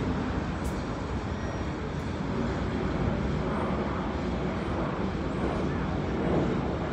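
Freight train rolling past, a steady low rumble.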